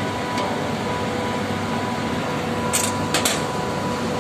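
Steady mechanical hum of running air-conditioning plant machinery, with a thin steady whine. A few short clicks and rustles about three seconds in as the multimeter and test leads are handled.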